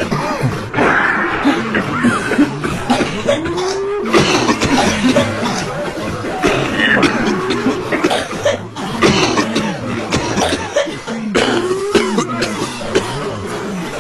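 A crowd of people coughing over one another, a dense, continuous mix of many overlapping coughs with voices in among them.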